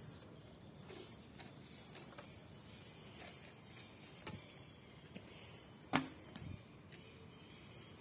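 A shot from a traditional bow: a sharp bowstring snap about six seconds in, the loudest sound, with a short low thump after it. A few lighter clicks come before it as arrows are nocked and bows handled.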